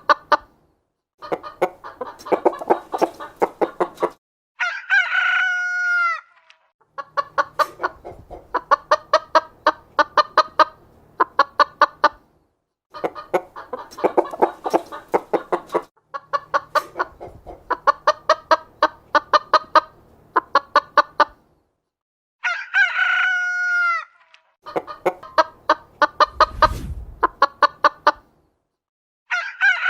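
Domestic chickens cackling in long runs of rapid clucks, broken up by short silent gaps. A rooster crows three times: a few seconds in, about three-quarters of the way through, and again at the very end.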